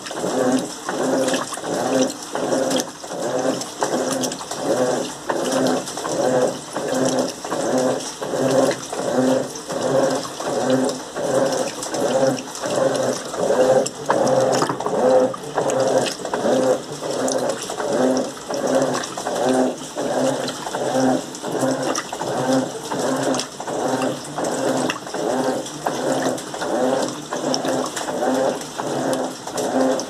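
Top-loading Electrolux Turbo Limpeza 8 kg washing machine agitating a full load in water: the agitator's motor and the sloshing clothes pulse back and forth in a quick, even rhythm of strokes. This is the rinse stage, where the machine mixes in the fabric softener.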